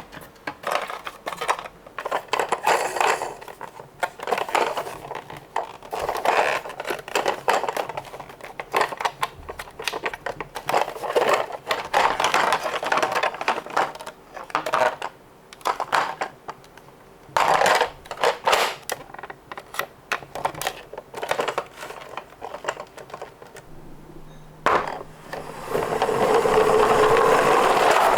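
Small die-cast Tomica toy cars rolling and clattering down a slope, in repeated bursts of rattling and clicking, with a longer steady rolling rattle near the end.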